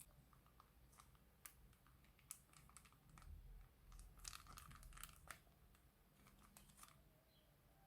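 Faint crinkling and scattered clicks of a plastic bag being handled, thickening into a denser run of crackles about three to five seconds in.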